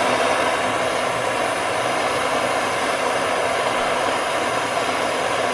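Handheld gas plumbing torch burning with a steady hiss as its flame heats a copper drain-pipe joint before soldering.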